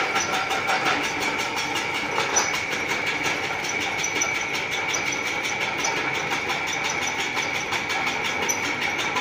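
Rice husking machine running steadily, a continuous high whine with a fast, even rattle as it turns.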